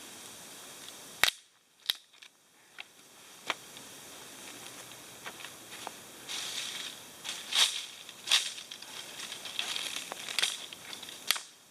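Dry sticks snapping one after another, with crunching and crackling of twigs and leaf litter in between, as firewood is broken up by hand. The sharpest snaps come about a second in and in a cluster over the second half.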